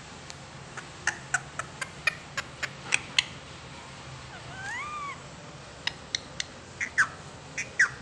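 Rose-ringed parakeet giving short, sharp squawks in quick runs, with one longer call near the middle that rises and then falls in pitch.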